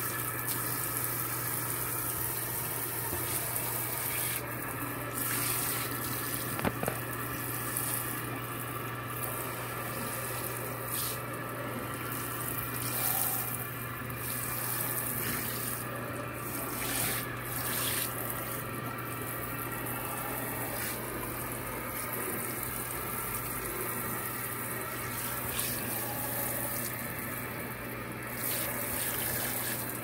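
Kitchen faucet running steadily into a sink, water splashing in the basin, over a constant low hum.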